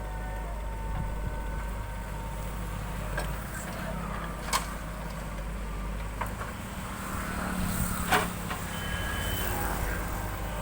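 JCB 3DX backhoe loader's diesel engine running steadily at work, with two sharp metallic knocks about four and eight seconds in, the second the louder.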